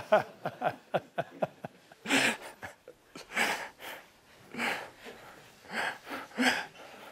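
A person laughing: a quick run of short "ha-ha" pulses for about two seconds, then a few breathy laughs spaced about a second apart.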